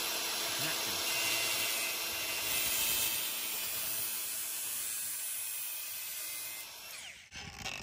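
Angle grinder with a cutting disc running steadily as it cuts through a plastic-coated steel brake pipe. About seven seconds in it is switched off and winds down.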